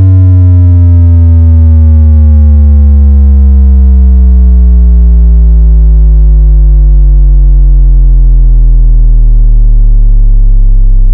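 Very loud electronic sub-bass test tone for checking subwoofers, a distorted hum that glides slowly downward in pitch.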